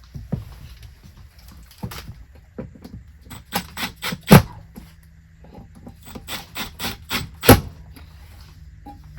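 Irregular knocks and clicks with some creaking, and two sharp, much louder knocks about four and seven and a half seconds in.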